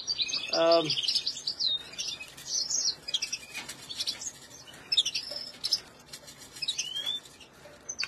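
Caged canaries and goldfinches chirping and twittering, many short high calls and trills overlapping, busiest in the first few seconds and thinning out later, with a rising whistled call near the end.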